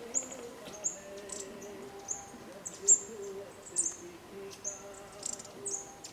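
Wild birds calling: short, high chirps that slide down in pitch, repeated about once or twice a second, with a faint lower wavering tone underneath.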